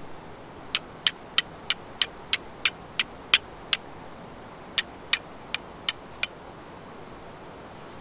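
A run of sharp, evenly spaced clicks, about three a second: ten, a pause of about a second, then five more, over a steady background hiss.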